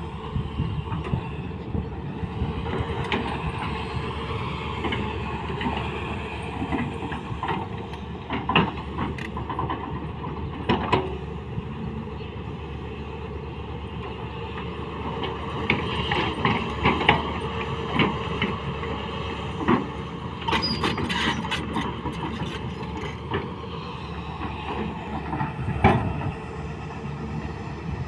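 Hyundai crawler excavator working loose soil: its diesel engine runs steadily under load, with irregular metallic clanks and knocks from the steel tracks and bucket, and a brief burst of higher rattling about two-thirds of the way through.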